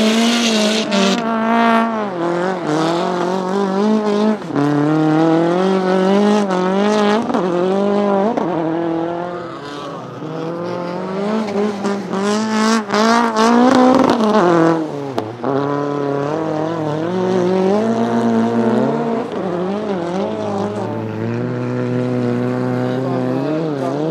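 All-wheel-drive Fiat 500 Abarth ice-racing prototype's engine being worked hard as the car slides through snow corners. The engine note climbs and falls again and again with throttle and gear changes, peaking a little past halfway before dropping away.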